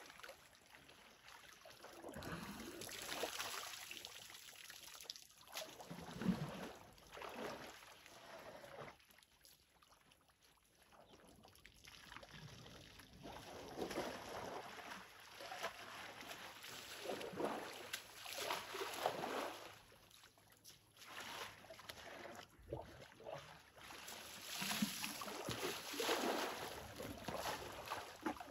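Water splashing and trickling in irregular bursts as African bush elephants drink in a river's shallows, dipping their trunks and stirring the water with their feet.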